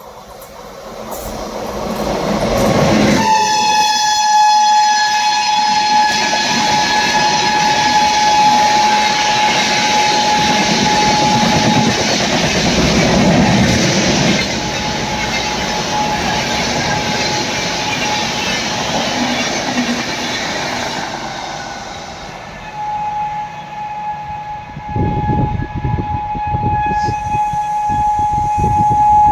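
WAP-7 electric locomotive's shrill horn sounding a long, steady blast from about three seconds in. It weakens midway and sounds strongly again near the end, over the rumble of the moving train, with a run of wheel clatter near the end.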